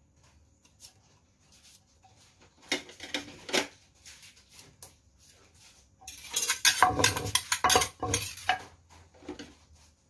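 A wooden pestle and a metal spoon knocking and scraping in a clay mortar as tomatoes are bruised and tossed for som tam. A few sharp clicks come about three seconds in, then a dense run of knocks and scrapes from about six to nine seconds.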